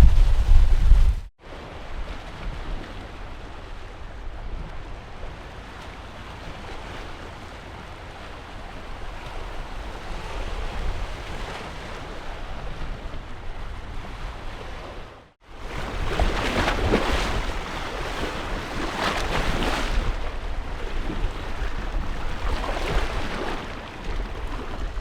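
Sea surf washing on the shore with wind. For about the first second heavy wind rumble on the microphone; after a sudden cut a steady soft wash of surf, then after another cut about 15 seconds in, louder surf with waves surging in several times.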